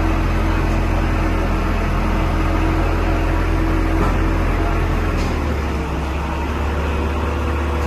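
Diesel engine of a crane truck running steadily with a low hum, powering the truck-mounted crane as it hoists a load. The engine note shifts a little about five seconds in.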